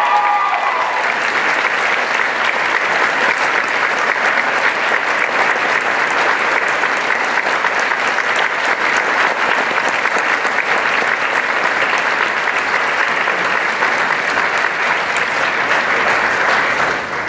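A large audience applauding: dense, steady clapping that tails off near the end.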